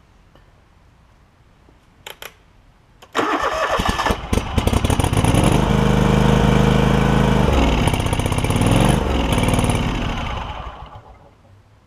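John Deere LX188 lawn tractor's Kawasaki engine: a couple of short clicks, then the starter cranks it about three seconds in and it catches almost at once, runs for about six seconds with its speed dipping and recovering, and dies away near the end. The new aftermarket carburetor is flooding, fuel pouring out the bottom.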